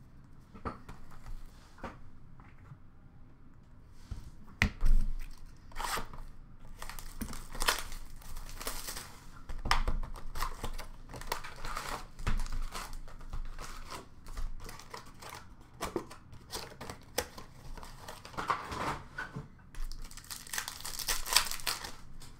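Plastic wrapping of a 2020-21 Upper Deck SP Authentic hockey card box being torn and crumpled as the box is opened and its packs handled: irregular crinkling and tearing, loudest about five, ten and twenty-one seconds in.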